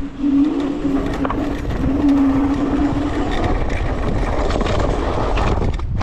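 Electric scooter riding off road: a steady motor whine that fades out about three seconds in, over constant wind noise on the microphone and tyre rumble, which dip briefly just before the end.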